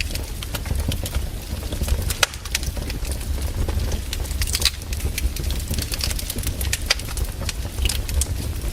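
Firewood burning: frequent irregular crackles and pops over a steady low rumble.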